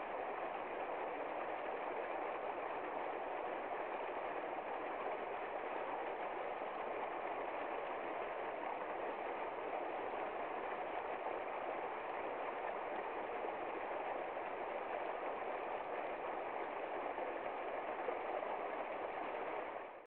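Shallow stream running over rocks, a steady, even rush of flowing water.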